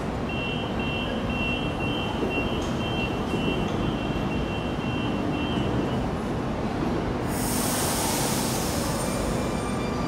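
Sydney Trains double-deck electric train at the platform: a two-tone door-closing warning beep repeats for about five seconds. About seven seconds in comes a sudden burst of air hiss, and near the end the whine of the traction motors begins as the train starts to pull away.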